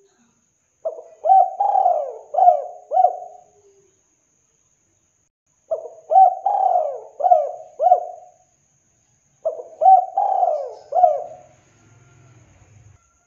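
Spotted dove cooing its song: three phrases of four or five notes each, a few seconds apart.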